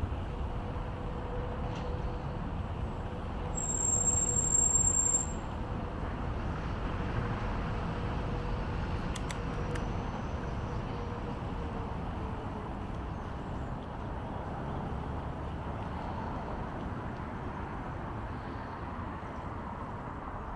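Road traffic noise heard from a moving bicycle, with a faint steady hum that fades out about halfway through. About four seconds in comes a brief, louder high-pitched squeal.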